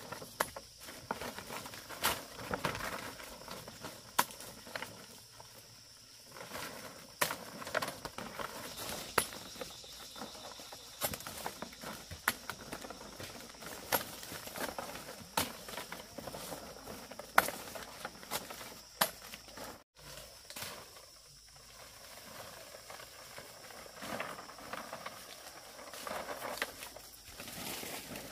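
Foliage rustling with irregular sharp snaps, about one every second or two, and footsteps, as dong leaves (Phrynium) are picked by hand.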